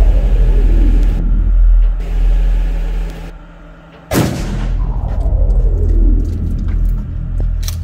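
A single shotgun shot firing a bean bag round about four seconds in, with a short ringing decay. A steady low rumble runs underneath before and after the shot.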